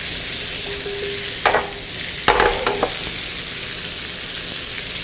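Cauliflower frying in butter in a skillet, sizzling steadily. A knock about a second and a half in and a quick cluster of ringing metallic knocks a second later come from the pan as it is handled on the burner.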